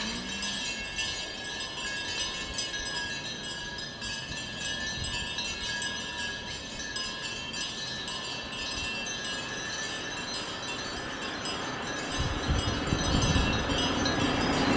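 Small metal bells on walking cattle chiming and tinkling continuously. A vehicle engine grows louder over the last few seconds.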